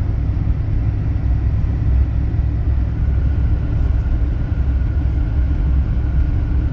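Pickup truck driving, heard from inside the cab: a steady low engine and road rumble with a faint, even hum above it.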